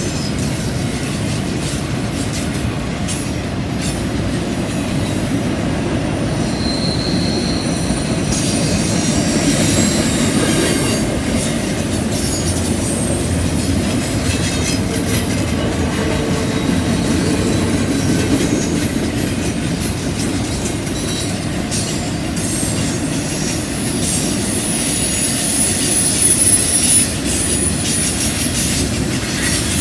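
Freight cars of a CN intermodal train rolling steadily through a curve: a continuous low rumble with wheel clicks, and the wheel flanges squealing high against the rail now and then.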